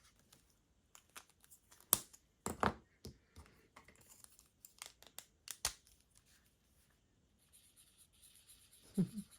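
Craft supplies being handled on a desk: a handful of sharp clicks and knocks, like colouring pens being picked up, uncapped and set down, with faint rustling of paper between them.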